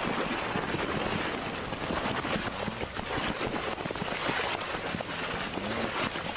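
A herd of wildebeest running through shallow river water: continuous splashing with many short hoof thuds on mud and water.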